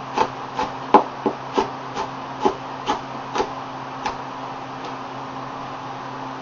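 Chef's knife slicing an onion, each stroke knocking on a plastic cutting board, about two to three knocks a second, stopping about four seconds in. A steady low hum runs underneath.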